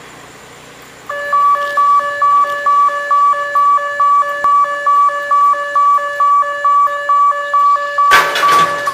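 Level crossing warning alarm sounding a pulsing electronic tone, about two to three beeps a second, starting about a second in. A brief loud noisy burst cuts across it near the end.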